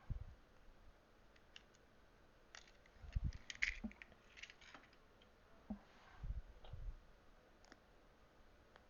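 Faint clicks and short scrapes of a knife cutting back the insulation on a carpet-cleaner power cord, with a few soft low thumps of the cord and hands being handled.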